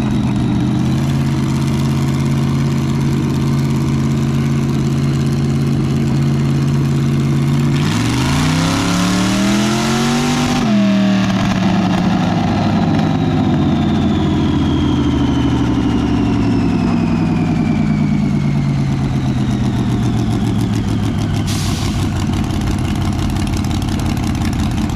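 Supercharged small-block Chevy V8 in an S-10 mini truck making a dyno pull. It runs steadily, revs hard and fast for about three seconds, then winds down slowly, with a thin high whine falling along with it.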